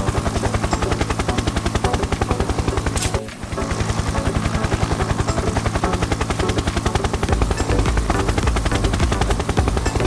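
Plastic toy helicopter running with its rotor spinning, giving a rapid, even chopping helicopter sound. The chopping breaks off briefly a little after three seconds and deepens from about seven seconds in.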